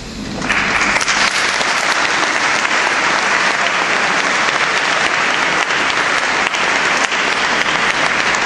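Audience applauding, starting about half a second in and keeping up steadily.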